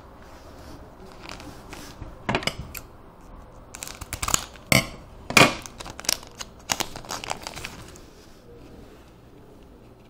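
Foil trading-card pack wrapper crinkling and being torn open by hand: a run of irregular sharp crackles and tears from about two seconds in, loudest in the middle, dying away about eight seconds in.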